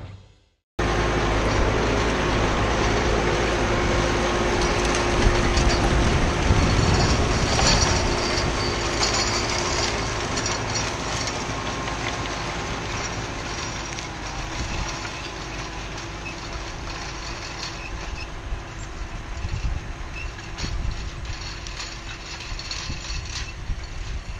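New Holland T4.100 tractor running steadily under load as it pulls a Glencoe five-shank chisel plow through corn-stalk ground. The engine note grows gradually fainter through the second half as the tractor moves away.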